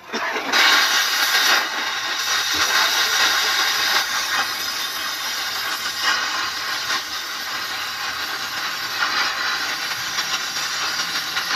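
A steady, loud hiss of gas or air rushing under pressure, starting abruptly.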